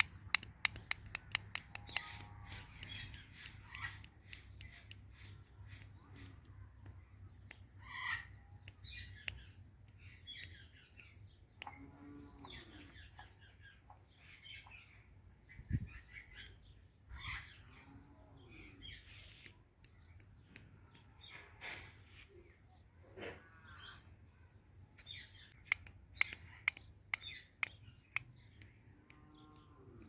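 Indian ringneck parrot giving short, scattered squawks and chattering calls, among many sharp clicks.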